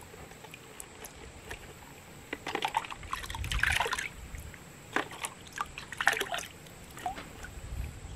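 A plastic cup dipped into a bucket of muscadine must and lifted out, the sugar-water sloshing and pouring back off it as the last of the yeast is rinsed out of the cup. The splashing comes in two bouts, about two and a half seconds in and again about five seconds in.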